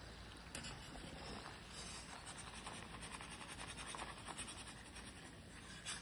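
Hot oil sizzling faintly with a fine crackle as papdi deep-fry in a wok and are lifted out with a wire skimmer, with a few light scrapes of the skimmer against the pan.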